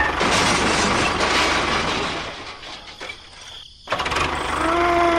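A small engine running with a noisy clatter. The sound fades away for about a second past the middle and cuts back in suddenly.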